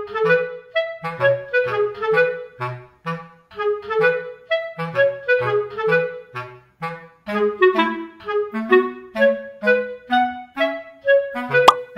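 Background music: a tune of short, detached notes over a lower bass line, with a sharp click near the end.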